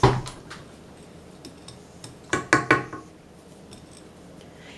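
A spatula scraping and knocking against a stainless-steel stand-mixer bowl. One sharp knock comes at the start, then a quick run of about four ringing taps midway.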